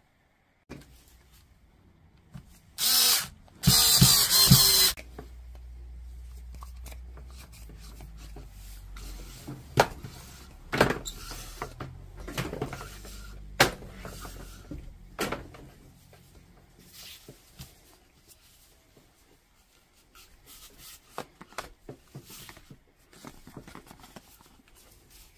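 Two short bursts of a power tool running, the second about a second long, followed by a low hum and scattered clicks and knocks of small parts being handled.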